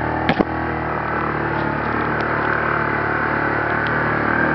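Engine of an open off-road vehicle running steadily under way on a dirt track, with a steady rumble of road and air noise. Two sharp knocks come about a third of a second in.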